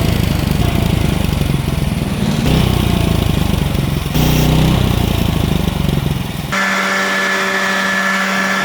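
The engine of a manual sawmill running steadily, with a few abrupt jumps in the sound. About six and a half seconds in, it switches suddenly to a steady, higher-pitched whine.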